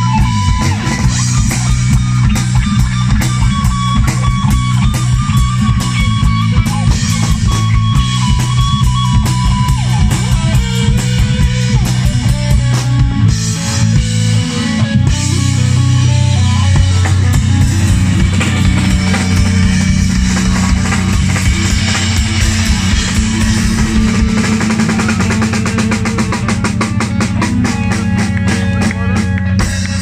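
Live rock band playing: electric guitar, bass guitar and a drum kit, the drumming growing busier over the last several seconds.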